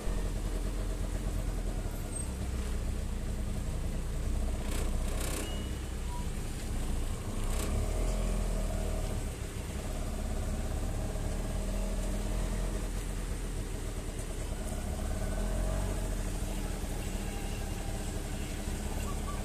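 A motor vehicle engine running steadily with a low rumble, with a few brief knocks about five and seven and a half seconds in.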